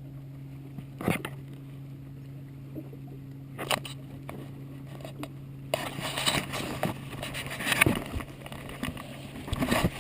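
Boat motor running with a steady low hum while the boat power-drifts, with a couple of sharp knocks. About halfway through, a rougher rustling and clattering noise joins in over the hum.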